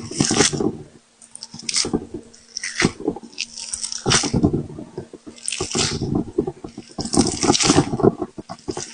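Jelly popping and squishing in repeated wet, crackling bursts, roughly one a second.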